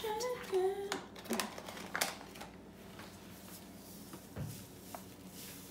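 Paper bag of sugar crinkling and rustling as it is handled and tipped toward a glass measuring cup, with several sharp crackles in the first couple of seconds, then only faint rustling.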